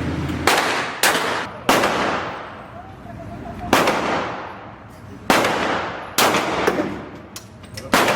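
Gunshots fired one at a time at a shooting range, about eight shots at uneven intervals, each with a ringing echo trailing off after it.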